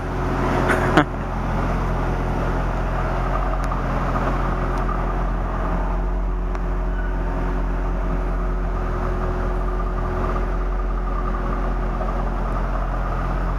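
2000 Chevrolet Corvette's 5.7 L V8 idling steadily, with a steady hiss of rain underneath.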